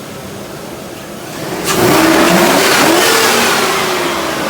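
Pickup truck engine fitted with an aftermarket cold air intake, running at idle and then revved hard about a second and a half in, its pitch sweeping up and easing back down under a loud rushing hiss.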